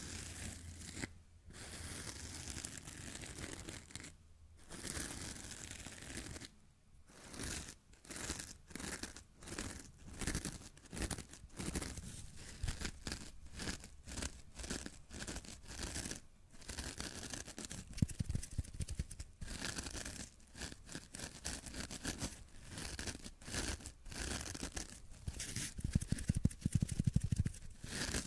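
Fingernails scratching and rubbing textured material close up against a condenser microphone: first a fuzzy felt pad, then a layered foam sponge. The strokes come as a fast, irregular run of dry scratching, with a few short pauses.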